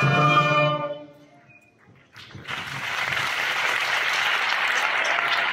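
Children's orchestra ending a piece on a held final chord that dies away within about a second. About two seconds in, the audience breaks into steady applause.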